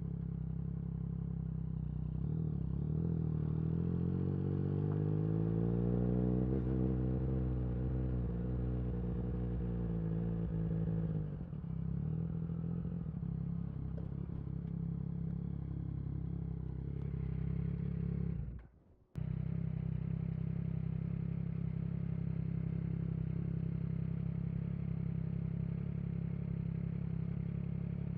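Yamaha MT-09 SP's three-cylinder engine through an Akrapovic carbon racing exhaust, heard while riding. The pitch rises under acceleration a few seconds in and eases back, then settles into a steady drone. The sound cuts out abruptly for a moment about two-thirds of the way through.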